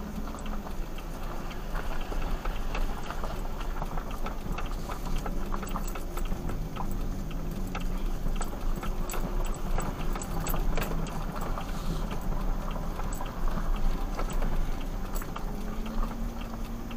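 A vehicle engine running with a steady low rumble, along with many small rattling clicks.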